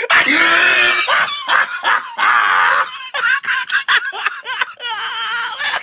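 Loud, high-pitched screaming and shrieking voices with bits of snickering laughter, in short broken outbursts without clear words.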